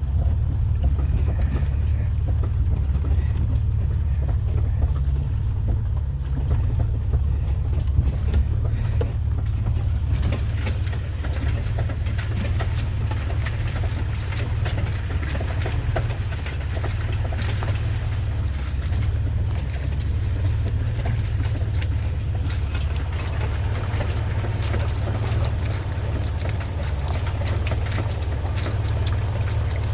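Four-wheel-drive vehicle driving slowly, its engine and tyres making a steady low rumble, with rain and water on the wet road adding a crackle of small ticks that grows from about ten seconds in.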